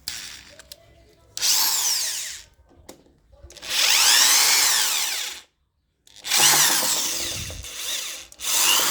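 I Bell SD 12-75 electric screwdriver-drill motor running in several short bursts, its whine rising and falling in pitch as the speed-control trigger is squeezed and let off.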